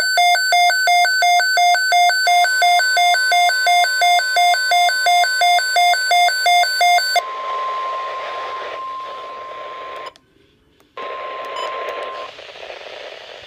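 A weather alert radio's alarm beeping rapidly, about four loud beeps a second, for roughly seven seconds. The steady NOAA Weather Radio 1050 Hz warning tone then comes through the receiver with static hiss. It cuts out for about a second, returns briefly and stops, leaving static.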